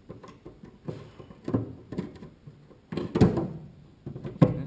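Spot-welded sheet-steel remnants being gripped and twisted with fencing pliers: metal clicking and creaking, a loud knock about three seconds in, and a sharp crack with a brief ring near the end as a piece tears off at the spot weld.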